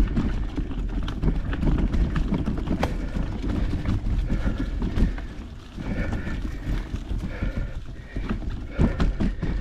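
A mountain biker breathing hard, the breaths coming about once a second and clearest in the second half, over a low rumble with scattered knocks and rattles from the bike on rough trail.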